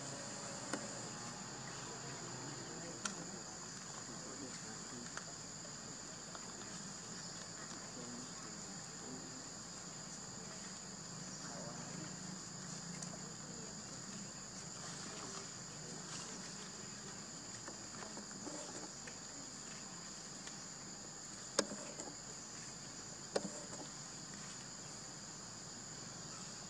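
Steady chorus of insects, a continuous high-pitched drone, with two sharp clicks near the end.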